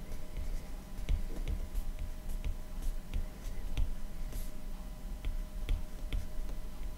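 Stylus tip tapping and sliding on a tablet's glass screen during handwriting: a run of light, irregular ticks, a few a second, over soft low knocks.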